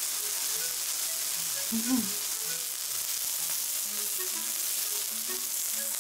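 Meat sizzling steadily on a yakiniku grill, with a brief voice sound about two seconds in.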